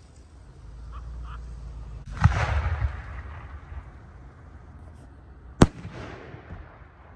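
A 5-inch aerial firework shell fired from a mortar about two seconds in: a loud thump of the lift charge, then a short rushing noise as it climbs. About three and a half seconds later the shell bursts with one sharp bang, followed by a brief fading rumble.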